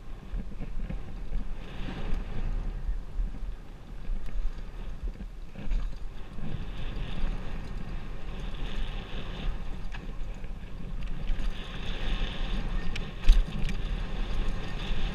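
Mountain bike riding fast down dry dirt singletrack: wind buffeting the action-camera microphone over the steady rumble and rattle of the tyres and bike. A sharp knock stands out about thirteen seconds in.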